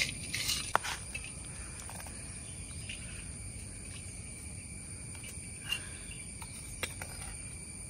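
Steady chorus of insects, several high, unbroken buzzing tones at once. A few sharp clicks and light knocks sound over it, the loudest about a second in, from metal cooking pots and a ladle being handled.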